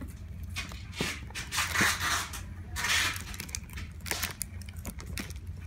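Plastic shrink-wrap on a boxed manga set rustling and crinkling as it is handled, in a few short scuffs, the loudest about two and three seconds in. A steady low hum runs underneath.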